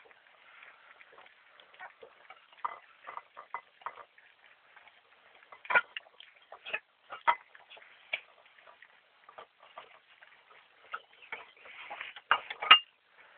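Boxer puppies eating together from one dish: an irregular patter of short chewing and mouth clicks. The louder ones come about six seconds in and near the end.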